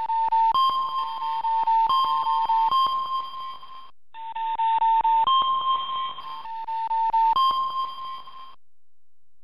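Electronic alert tone of a live seismic monitor: two pitches alternating with a rapid clicking, in two bursts with a short break about four seconds in, stopping near the end. The monitor sounds it when its seismometers register strong shaking from a distant large earthquake.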